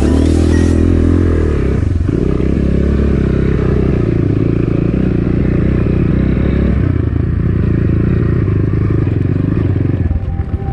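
Dirt-bike engine running under load on a rough trail, its revs dropping and picking up again a couple of times, with some clattering along the way.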